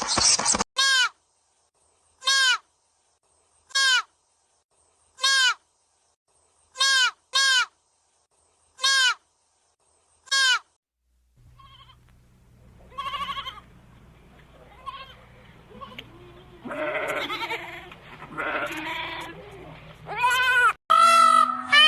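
An animal giving a short, pitched call over and over, about once every second and a half, then different, noisier animal calls over a low steady hum.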